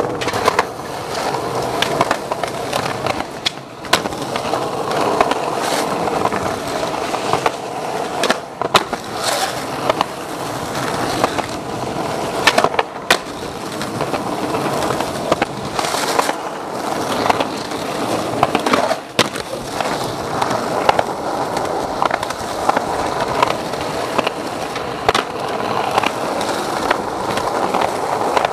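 Skateboard wheels rolling over rough concrete, broken again and again by sharp clacks of the board's tail popping and the board landing and slapping the ground.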